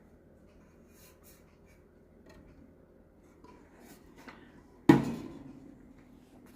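Toaster oven accessories being handled: a few faint clicks, then one sharp knock about five seconds in that rings briefly.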